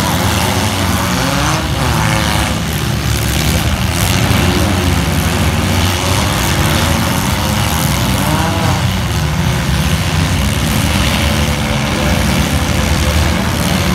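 Several four-cylinder demolition-derby cars' engines running and revving together, with occasional crashes of car bodies.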